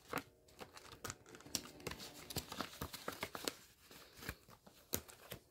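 Paper money and a binder cash envelope rustling and crinkling as dollar bills are handled and tucked into the envelope: a run of soft, irregular crackles.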